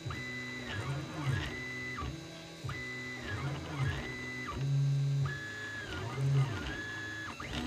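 Printrbot 3D printer's stepper motors whining as the print head moves, each move a tone that rises in pitch, holds steady and falls again, one after another in quick succession at a few different pitches.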